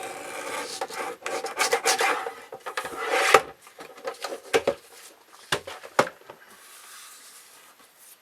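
An old, worn paper cutter rasping and scraping through paper for about three seconds, the blade no longer cutting cleanly, followed by four sharp clicks or knocks.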